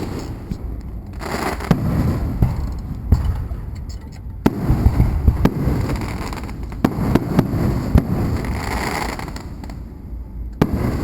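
Fireworks going off: a rapid string of sharp bangs and pops over a continuous low rumble and crackle of shells bursting, the loudest single bang about four and a half seconds in.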